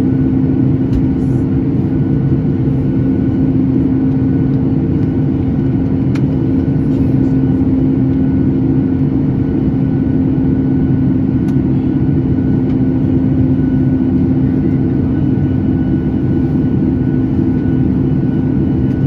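Steady in-flight cabin noise of a Boeing 737 MAX: a constant rush of air with a steady hum from its CFM LEAP-1B turbofan engines.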